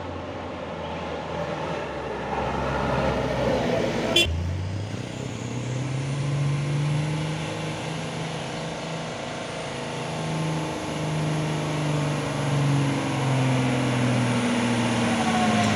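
A heavy container truck's diesel engine, a Hino, pulls hard up a steep hill with a steady low drone, its pitch wavering and creeping up near the end. Before that, about four seconds of another vehicle's low steady hum end in a sharp click.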